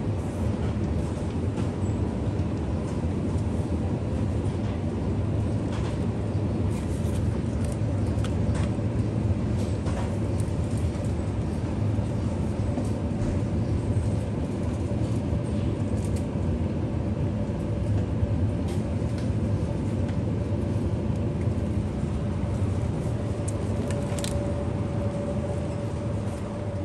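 Steady low rumble of supermarket background noise from the refrigerated display cases and store machinery, with faint scattered clicks and knocks. A steady tone sets in near the end.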